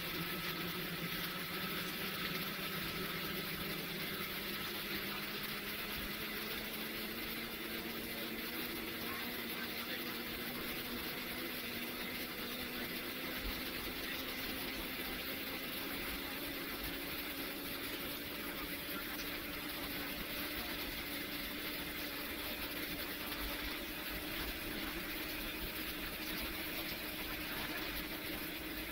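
An airliner's jet engines at taxi power, heard from inside the cabin: a steady rumble and hiss with a faint tone that slowly rises in pitch.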